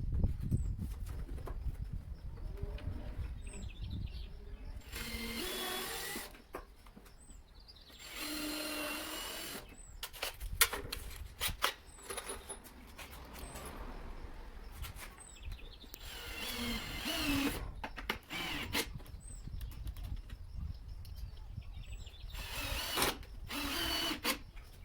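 Power drill running in about four short bursts of a second or two, driving screws to pull the wooden frame together, with clicks and knocks of handling between the runs.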